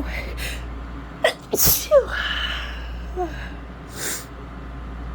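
A woman sneezing hard about two seconds in, after a couple of quick, sharp breaths in, then a short breath about four seconds in. The sneeze comes from a head cold that has left her nose itchy and congested.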